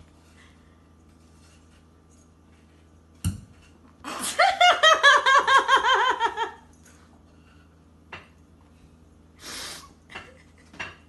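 A person laughing hard: a quick run of high 'ha-ha-ha' syllables, about eight a second, falling slowly in pitch over two and a half seconds. A single thump comes just before, and a short breathy rush of air near the end.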